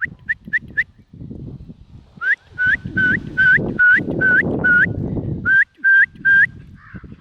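A person whistling to recall a dog: short, quick rising whistles, repeated about sixteen times in three runs. A low rough noise lies underneath in the middle.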